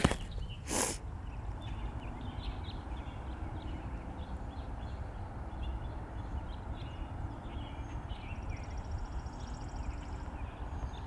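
Garden ambience: a steady low rumble with faint, scattered bird chirps, a brief rustle about a second in, and a short buzzy trill near the end.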